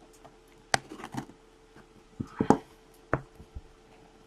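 Scattered clicks and taps of trading-card boxes and packs being handled, a few short knocks spread over the few seconds, over a faint steady hum.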